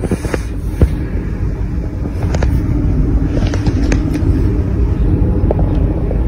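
A loud, steady low rumble with scattered clicks and light knocks, the strongest of them about a second in.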